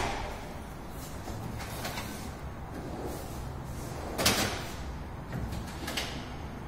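Kitchen cabinet drawers being slid open and pushed shut: a few light knocks, and one sharp bang a little over four seconds in as a drawer closes.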